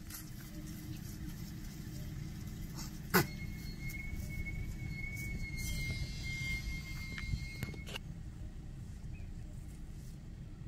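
Low steady rumble of a vehicle idling. About three seconds in comes a sharp click, then a thin, steady high tone that lasts about four and a half seconds and stops with a second click.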